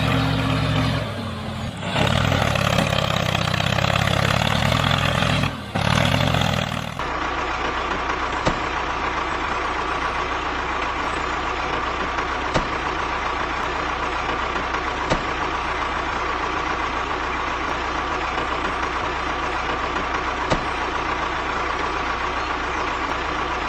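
A vehicle engine running steadily. About seven seconds in the sound cuts abruptly to a duller steady hum with a faint whine and a light tick every two to three seconds.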